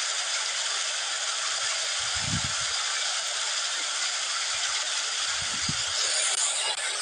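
Stream water rushing and splashing over a stone weir and through bamboo spouts, a steady loud hiss of cascading water. Two brief low rumbles come about two seconds and five and a half seconds in.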